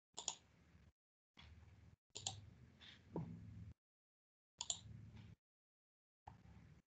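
Faint, scattered clicks from a computer mouse and keyboard, heard in short stretches of room noise that cut in and out.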